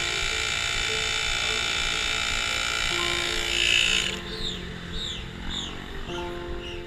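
Handheld electric air inflator running with a steady motor whine as it pumps up a bicycle inner tube, then switching off about four seconds in.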